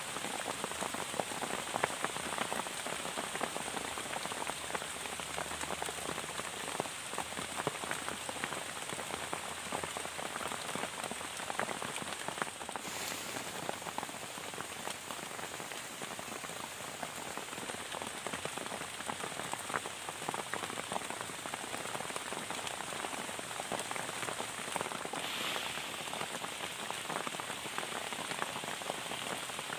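Heavy rain falling steadily on a plastic-sheet shelter, a dense unbroken patter of drops.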